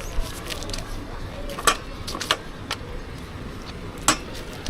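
A few sharp clicks and knocks, the loudest about a third of the way in, over a steady low background hum.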